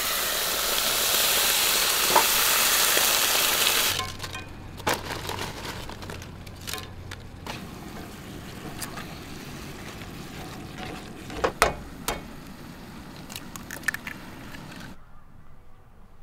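Red sauce poured from a can into a hot skillet sizzles loudly for about four seconds. Then it settles to a quieter sizzle, with clicks and scrapes as tortilla chips are tossed in the pan with tongs. The sizzle stops near the end.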